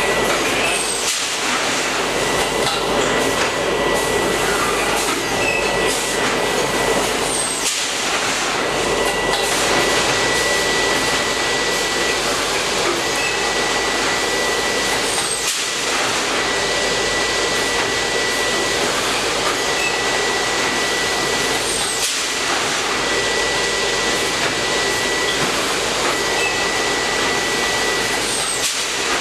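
Automatic open-mouth bagging machine running: a steady mechanical din with a thin high whine that stops and starts, broken about every seven seconds by a short dip and a click.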